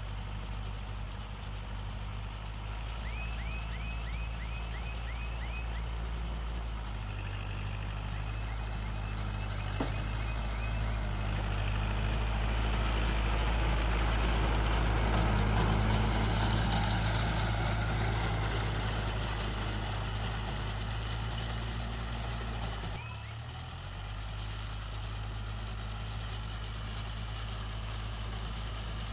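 Kubota MU4501 tractor's four-cylinder diesel engine running steadily while working a baler. About halfway through the sound swells, with a broad rushing noise over the engine as the machinery works harder, then eases back. The engine note dips briefly a little before the end, and short high chirps repeat in the first ten seconds.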